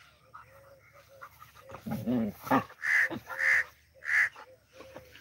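Birds calling three times in quick succession about three to four seconds in, the loudest sounds here. A shorter, lower call comes about two seconds in.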